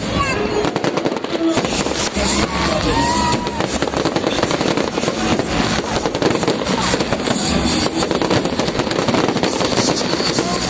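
Fireworks display: a dense, continuous barrage of rapid crackling and banging from many bursting shells.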